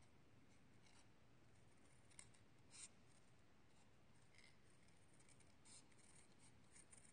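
Small craft scissors faintly snipping through paper in short, irregular cuts, about one every second, while a stamped dolphin is cut out along its outline.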